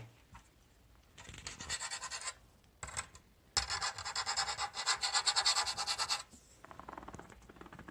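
Scratching on the keyboard's aluminium metal plate, in rapid back-and-forth strokes. There is a short stretch about a second in and a longer one of about two and a half seconds from the middle.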